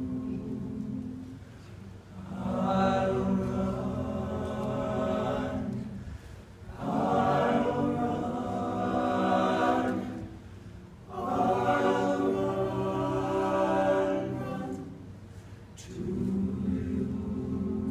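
All-male a cappella group singing in close harmony, with no instruments. The singing comes in long phrases that swell and ease back about every four seconds.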